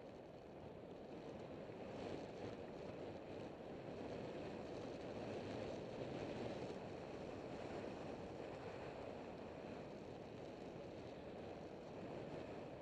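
Steady wind noise on the microphone over the rumble of mountain bike tyres rolling on a dirt trail, a little louder from about two seconds in.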